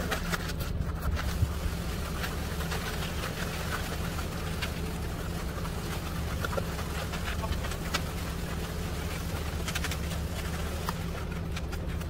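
Concrete mixer truck's diesel engine running steadily with a low hum while the drum turns, with scattered clicks and scrapes of hand tools working wet concrete.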